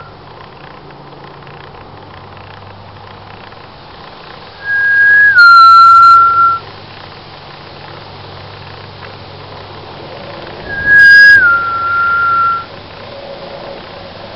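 A person whistling loudly, twice, each whistle about two seconds long: a short higher note that steps down to a held lower one.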